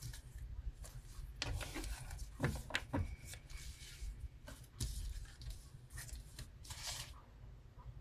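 Sheets of coloured paper and cards rustling and sliding across a tabletop as they are gathered up, in several short bursts with a few light taps.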